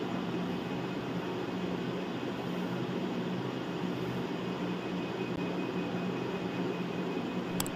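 Electric sewing machine running steadily as fabric is stitched, with a short click near the end.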